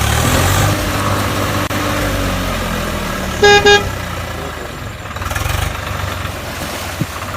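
Vehicle engine running steadily, with two short horn honks in quick succession about three and a half seconds in.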